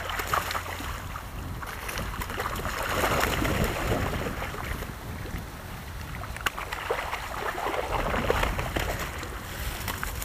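Water splashing and streaming off a mesh fishing keepnet as it is hauled out of the river with carp inside, in uneven swells, over a steady low wind rumble on the microphone.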